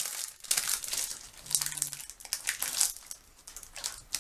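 Plastic muffin wrapper crinkling in irregular bursts as it is pulled open by hand.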